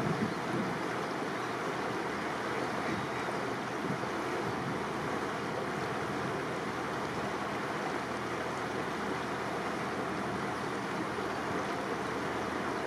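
Steady rushing of wind and water from a boat cruising slowly along a canal, with a few soft low wind buffets on the microphone about the start.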